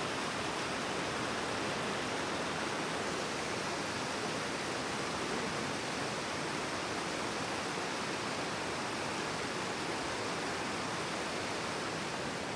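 Steady rush of fast-flowing water, an even hiss that does not change.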